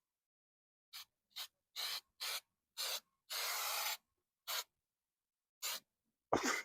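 Undercoating spray can sprayed in a string of short hissing bursts, with one longer burst around the middle.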